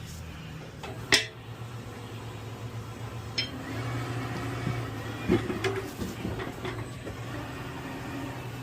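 Metal clanks and knocks from tire-changing work on a wheel after the bead has been broken, the loudest a sharp clank about a second in, over a steady low mechanical hum.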